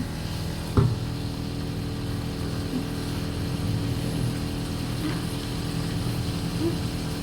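Steady low mechanical hum, with a sharp knock about a second in and another near the end.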